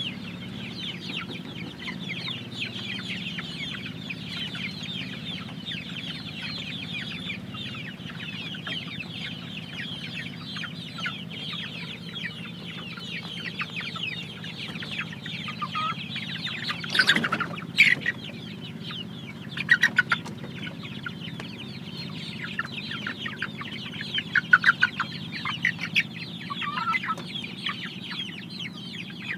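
A flock of young Jawa Super (joper) chickens calling and clucking continuously. A few louder, sharper calls break through about halfway, with several more near the end.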